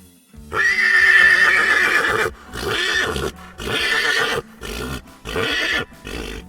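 Horse whinnying: one long shrill neigh starting about half a second in, then breaking into four or five shorter, weaker calls.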